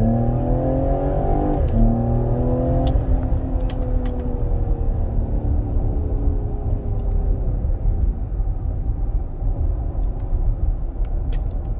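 Ford Explorer's engine, heard from inside the cabin, revving up under acceleration. The engine note drops twice as the 10-speed automatic upshifts, about two and three seconds in. After that the engine tone slowly sinks and fades into steady tyre and road rumble.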